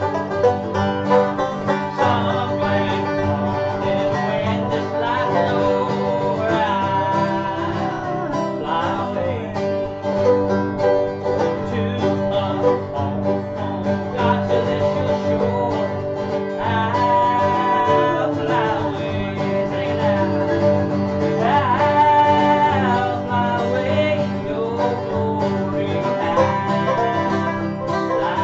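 Acoustic guitar and banjo playing together in a bluegrass style: the banjo picks quick rolls over the guitar's strummed rhythm, with no break in the music.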